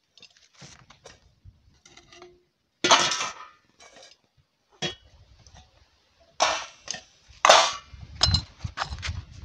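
Metal cookware clanking as teapots, pans and lids are handled and set down: about five sharp clangs, some with a short ring, the loudest about three seconds in and another near the end.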